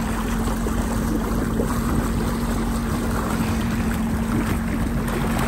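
Jet ski engine running at a steady pitch while towing an inflatable tube, with rushing water and wind noise.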